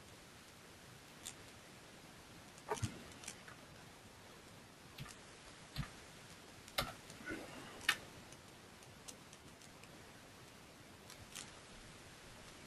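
Faint, irregular computer mouse clicks and keystrokes, about ten sharp clicks spread out over a low background hiss.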